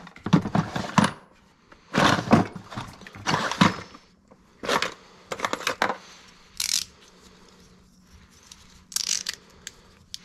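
Hard plastic tackle box with cantilever trays being opened and shut, its trays knocking and the small metal and plastic tackle inside rattling. It comes in about six short clattering bursts.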